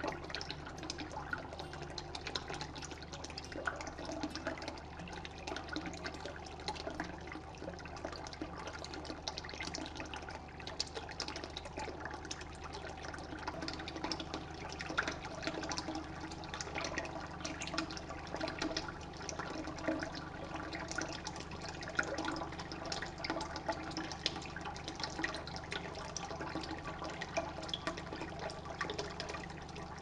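Small cement tabletop fountain running, pump-fed water pouring in thin streams from spouts into pots and a lower pebble basin: a steady trickling and splashing with many small drips.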